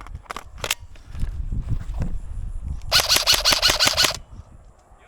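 Airsoft electric gun firing a rapid full-auto burst of about ten shots a second, lasting just over a second and starting about three seconds in. Before it, low thudding and scattered clicks of footsteps and gear on the move.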